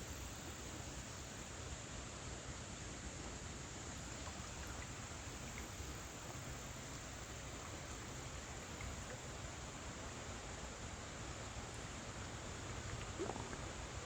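Faint, steady outdoor background hiss with a few faint high chirps; near the end a fly buzzes close by, rising in pitch as it comes in.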